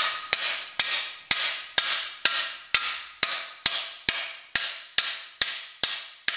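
Hammer blows on the end of a cam bearing tool's driver bar, a bit over two a second with a metallic ring after each, driving an old camshaft bearing out of an engine block.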